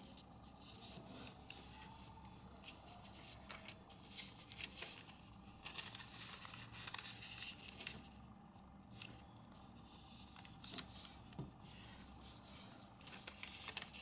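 A square sheet of origami paper being folded and creased by hand: irregular rustling and scraping of paper as the folds are pressed flat, with small crackles throughout.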